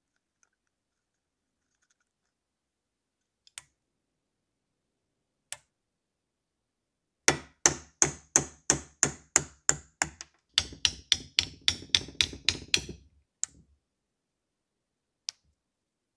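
Hammer striking the metal parts of an old lathe: about ten sharp taps at roughly three a second, then a quicker run of lighter, ringing taps. A few single metallic clicks come before and after.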